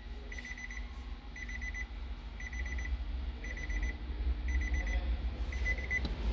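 An electronic warning beeper sounds short, rapid groups of high beeps, about one group a second, over a steady low rumble.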